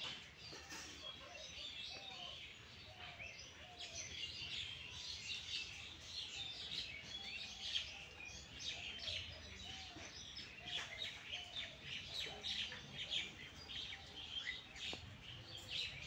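Many small birds chirping and twittering at once, a dense run of short, high, overlapping calls throughout, with a few lower call notes now and then.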